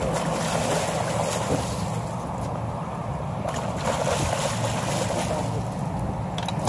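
Steady wind and sea noise: wind buffeting the microphone over the wash of waves, with no distinct events.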